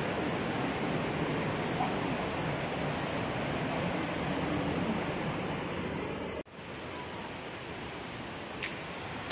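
Steady rush of falling or flowing water. It breaks off abruptly about six and a half seconds in and resumes a little quieter.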